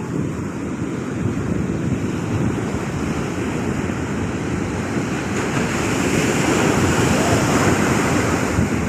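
Sea waves rushing and breaking in a steady wash that swells louder over the last few seconds, with wind buffeting the microphone.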